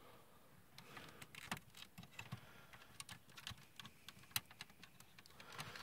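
Faint plastic clicks and rattles of a DX Great Sungard toy robot's parts being handled and shifted into place, with one sharper click about four seconds in.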